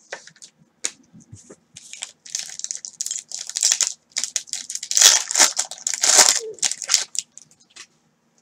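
Foil wrapper of a trading card pack being torn open and crinkled by hand: irregular crackling, loudest about five to six and a half seconds in.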